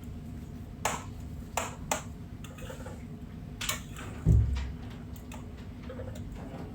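A few sharp clicks and taps, then one low thump about four seconds in, over a faint steady low hum.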